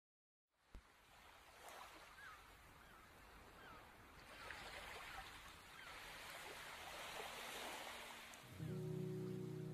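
Faint shore ambience: soft waves lapping, with short chirping bird calls repeated over them, growing slowly after a moment of silence. Sustained low music notes come in near the end.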